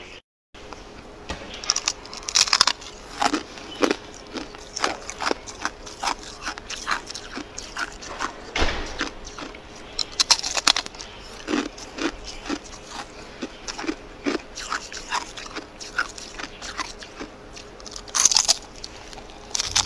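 A chunk of clear ice being bitten and chewed: a run of irregular crunches and cracks, with the loudest crunching bites around two, ten and eighteen seconds in.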